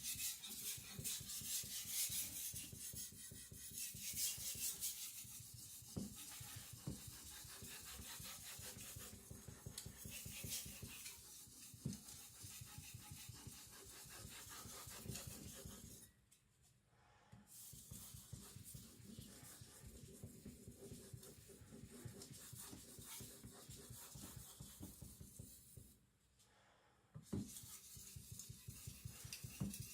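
Steel cleaver blade stroked back and forth on a whetstone in quick, even scraping passes to raise and flip the burr, the strokes stopping twice for about a second, about halfway through and again near the end.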